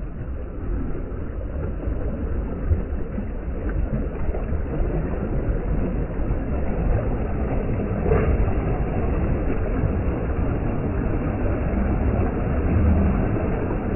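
Steady wind rumble on the microphone mixed with the wash of small waves breaking in shallow sea water.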